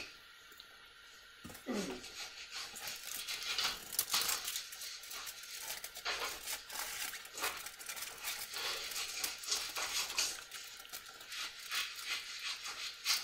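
Scissors cutting paper: a run of small, irregular snips and paper rustles, starting about a second and a half in.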